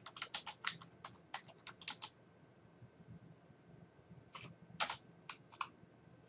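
Typing on a computer keyboard: a quick run of keystrokes for about two seconds, a pause, then a few more keystrokes later on.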